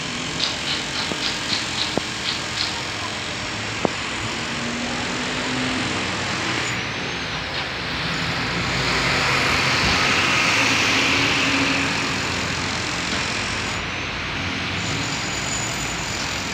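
Outdoor street traffic noise, with a vehicle passing by that swells and fades around the middle, and a quick series of short high ticks near the start.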